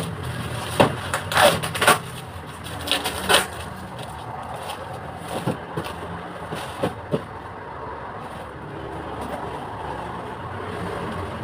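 Bubble wrap crinkling and crackling as it is pulled off a cardboard box, a dense run of crackles in the first few seconds, then a few scattered clicks as the box is handled.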